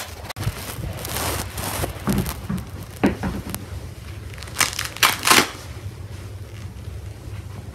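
Close rustling and crinkling handling noise for the first couple of seconds, then scattered sharp clicks about three seconds in and a louder cluster of clacks near the middle, like hard plastic being knocked.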